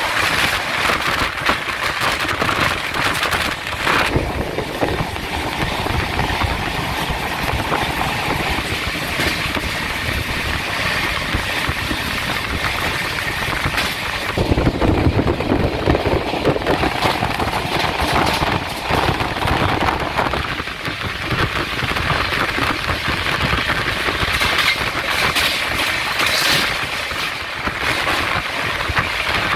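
Mumbai suburban local train running at speed, heard from on board: a steady rumble of wheels on the rails with a rushing noise. It gets louder for a few seconds around the middle.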